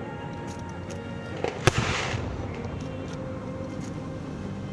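Aerial fireworks bursting: a few small pops, then one loud bang about a second and a half in, followed by a brief crackle, with music underneath.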